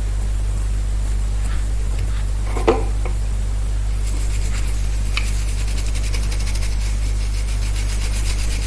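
Steady low electrical hum, with one sharp click about two and a half seconds in and a faint, rapid high-pitched ticking from about four seconds on.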